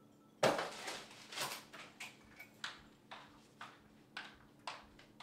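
A loud knock about half a second in, followed by footsteps on a hard floor, about two steps a second.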